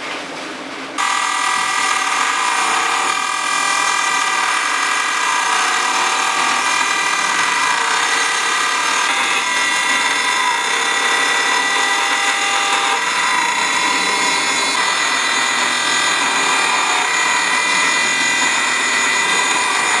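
Chinese 6040 CNC router's spindle milling aluminium with a small end mill, a steady high whine with a layered cutting noise. It comes in suddenly louder about a second in and holds steady.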